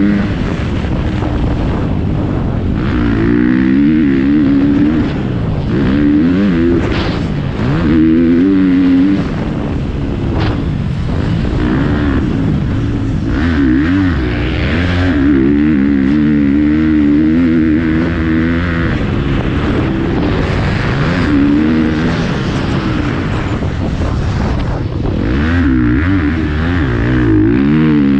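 Motocross bike engine heard from on the bike, revving up and dropping back again and again as the rider accelerates out of turns and shuts off.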